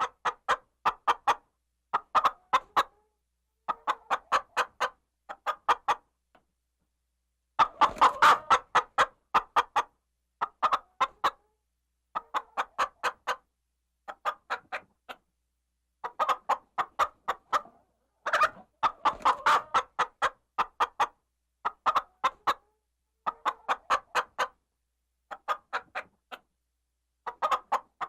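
Chicken clucking in short runs of rapid clucks, each run about a second long, with brief pauses between. Two runs, about eight seconds in and near two-thirds of the way, are louder and fuller.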